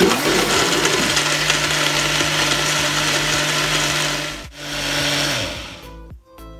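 Countertop blender running at full speed, churning yogurt, mango pulp, water and ice cubes into mango lassi, with a steady motor hum under the churning. It runs for about four seconds, cuts out for a moment, runs again for about a second, then winds down as the motor stops.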